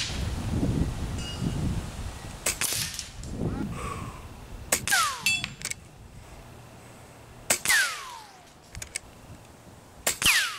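Shots from a .22 Air Venturi Avenger PCP air rifle: about four sharp cracks some two to three seconds apart, with smaller clicks between, and the later shots each followed by a short falling whistle.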